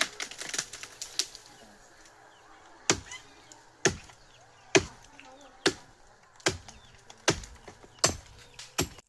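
Chopping into tree wood with a hand-held blade: sharp strokes landing at a steady pace, a little faster than one per second, with a few lighter knocks before the rhythm settles.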